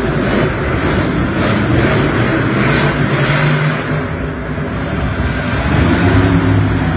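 Monster truck engine running hard and loud as the truck drives across a dirt arena floor, with the revs climbing about halfway through and again near the end.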